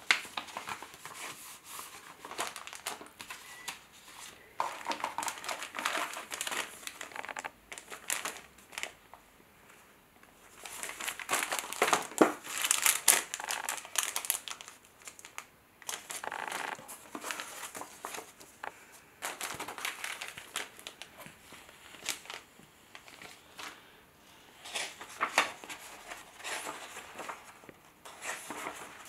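Clear plastic bags of kit parts crinkling and rustling as they are handled, in irregular bursts, with paper and cardboard rustling in between; the loudest crinkling comes about halfway through.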